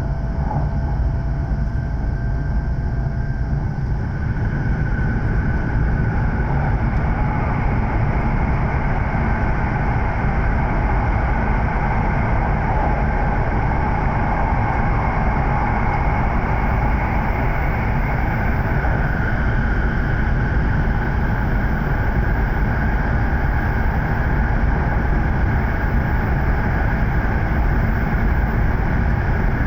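Running noise of an E7-series Shinkansen heard inside a passenger car at speed: a steady low rumble of wheels on rail and rushing air, with faint steady whining tones above it. It grows slightly louder over the first few seconds, then holds.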